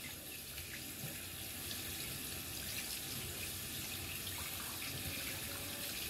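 Bathroom sink faucet running steadily, with water splashing over hands being rinsed and into the basin.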